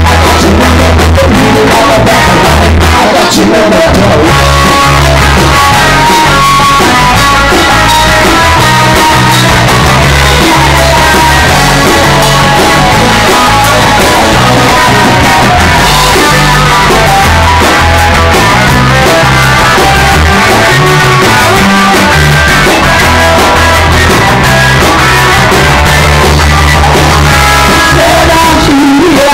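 Live rock band playing loud: electric guitar and drums, with a man singing. Low bass notes change in steps about once a second.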